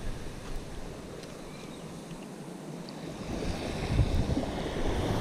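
Wind buffeting the microphone over the wash of small surf breaking on a sandy beach. The wind eases for a couple of seconds in the middle and picks up again near the end.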